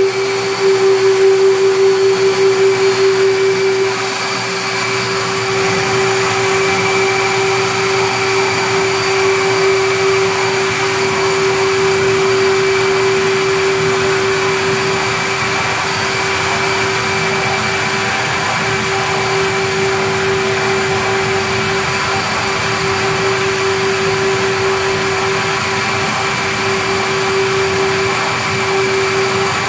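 Duct Master 3 duct-cleaning vacuum running steadily, pulling lint out of a dryer vent through its suction hose: a loud, even drone with a steady hum, a little louder for the first four seconds before it settles.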